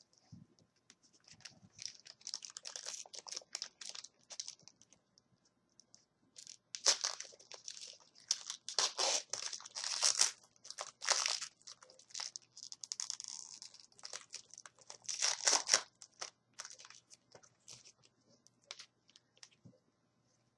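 A hockey-card pack's wrapper being torn open and crinkled by hand, in irregular crackling spells of a few seconds each.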